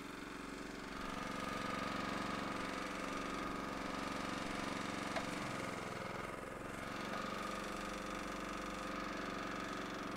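A Honda small engine running steadily on a LeeBoy L150 tack distributor, driving the material pump while the lines are pumped back into the tank and the hose is blown clear. A steady high whine joins in about a second in and fades out toward the end.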